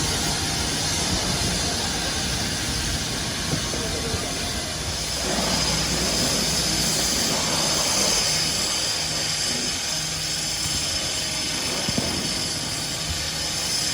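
Steady rumble and hiss of fire engines pumping water to hose lines in operation, growing a little louder about five seconds in.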